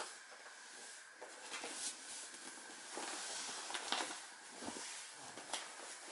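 Rustling and a few soft knocks of a person shifting his body across a vinyl-covered folding exercise mat, hands pressing and sliding on its surface, over a steady faint hiss.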